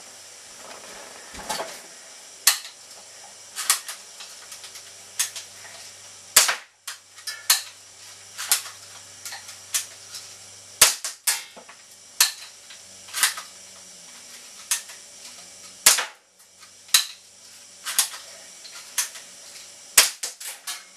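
All-metal Marksman BB pistol fired over and over: a string of sharp snaps, roughly one a second.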